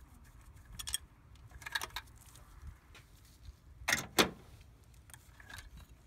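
Scattered light metallic clinks and rattles, the loudest pair about four seconds in, as a throttle-cable hold-down bracket and its 10 mm bolts are taken off the intake manifold and lifted away.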